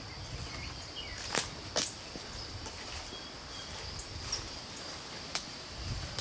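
Footsteps through storm debris, with sharp cracks of fallen branches snapping underfoot: two close together under two seconds in and one more about five seconds in, over a steady high insect drone and a few short bird chirps.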